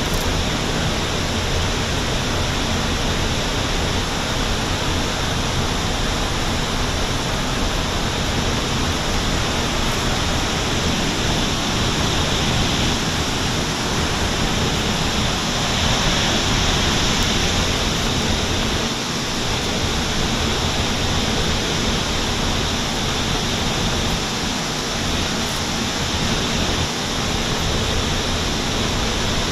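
Steady rushing of water from Fukiware Falls, a wide river waterfall, an even noise with no breaks.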